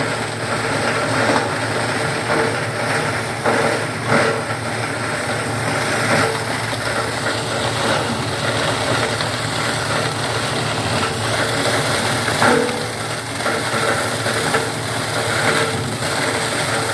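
Paper and cardboard shredding machine running: a steady motor hum with irregular cracks and crunches on top, as of cardboard being torn up by the cutters.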